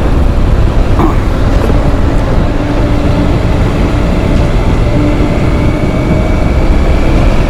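Motorcycle running at a steady pace while being ridden, its engine hum buried in a loud, steady low rumble of wind and road noise on the rider's microphone.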